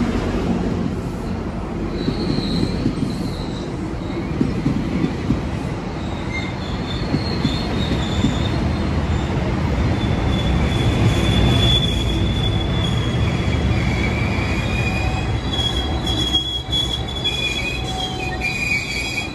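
GO Transit bilevel passenger coaches rolling past close by: a steady low rumble of steel wheels on rail, with thin high-pitched wheel squeals coming and going over it.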